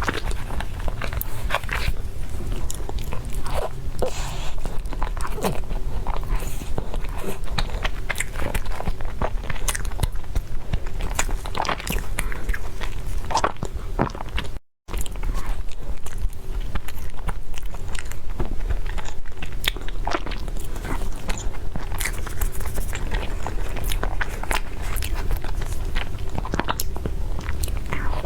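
A person eating close to the microphone: bites and chewing made of many short clicks over a low steady hum. The sound drops out for an instant about halfway through.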